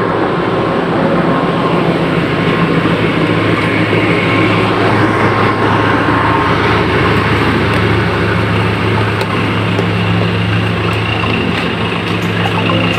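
Steady low drone of large diesel engines idling, with a thin steady whine above it.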